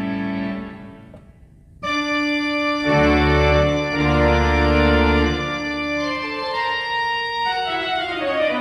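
Pipe organ playing: a held chord dies away about a second in, and after a brief hush new sustained chords enter, with deep bass notes sounding from about three seconds in before the chords move on.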